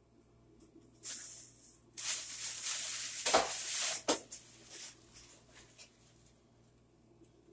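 Plastic bag rustling and crinkling as it is handled: a short burst about a second in, then a longer one of about two seconds, with two knocks near its end.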